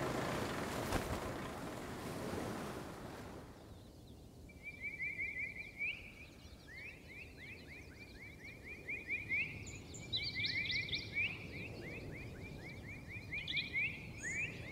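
Sea surf and wind noise for the first few seconds. It gives way about four seconds in to long trains of rapid, high chirps, with a few higher calls above them.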